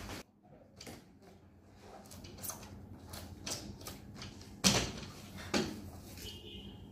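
Scattered light taps and clicks of a wooden magnetic education board and its pieces being handled, with one sharp knock about halfway through and a smaller one about a second later.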